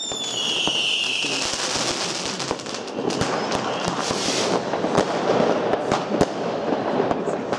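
New Year's fireworks going off all around: a firework's falling whistle in the first second or so, then continuous crackling and popping of many firecrackers and rockets, with a few sharper bangs around five and six seconds in.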